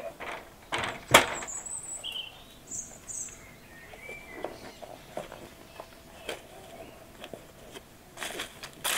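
Footsteps in leather shoes: a loud knock about a second in, light scattered crackles, then dry fallen leaves crunching underfoot near the end, with a few bird chirps early on.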